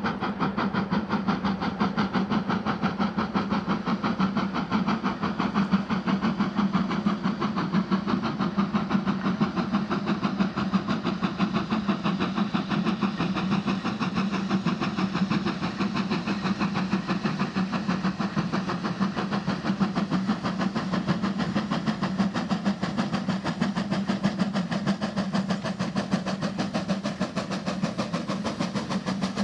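GWR Manor-class two-cylinder 4-6-0 steam locomotive working a passenger train under steam, its exhaust beating in a rapid, even rhythm as it approaches.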